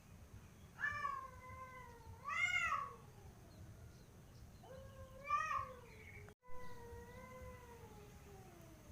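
Cats yowling in a standoff: long, drawn-out, wavering cries that rise and fall in pitch, swelling louder twice and then trailing off in a long falling wail.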